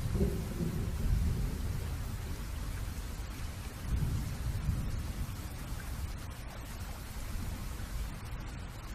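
Steady rain with low rumbles of thunder, heaviest near the start and swelling again about four seconds in.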